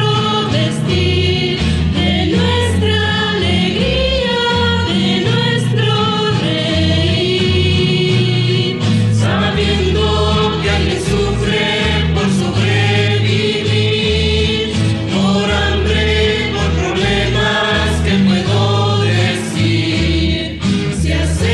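A Mexican-style Christian rondalla, a guitar ensemble, playing while a chorus of voices sings a slow hymn-like song over a steady bass line.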